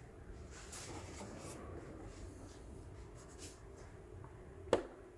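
Handling noise from the Batmobile collectible model: faint scraping and rustling, then one sharp click near the end.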